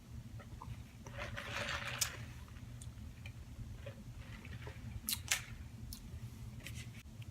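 Fast-food packaging handled at the table: a short rustle of wrapping about a second in, then a few sharp clicks and taps, over a steady low hum.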